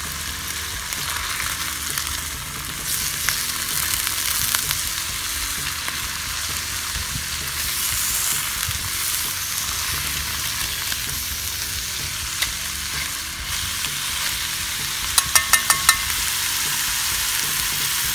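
Chicken thighs sizzling steadily in oil in a cast iron skillet as metal tongs turn them over. Near the end come five quick metallic clicks of the tongs.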